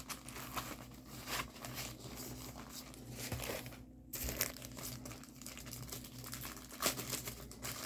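Plastic packaging of a diamond painting kit being handled, crinkling irregularly, with a brief pause about four seconds in.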